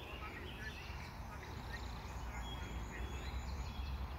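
Outdoor birds chirping and calling in short, scattered notes, over a steady low rumble.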